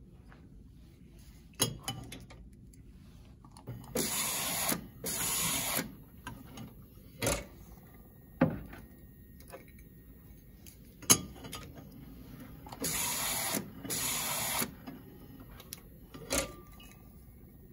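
Primera AP362 label applicator running in four bursts of about a second each, in two pairs several seconds apart, as it turns a glass wine bottle on its rollers to apply the labels. Between the runs come sharp clunks of the bottle being set onto and lifted off the rollers.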